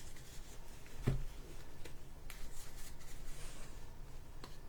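Trading cards being handled and slid past one another: faint scrapes and light clicks, with a soft knock about a second in.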